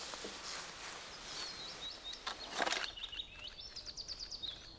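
A small bird chirping high, then a quick trill of about ten notes near the end, over outdoor background noise. There are a couple of brief rustling noises, the loudest about halfway through.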